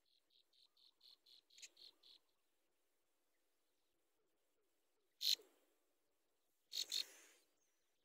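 A fast run of thin, high chirps, about four a second, growing louder and then stopping about two seconds in. Later come two sudden rustling bursts, the second, near the end, the loudest.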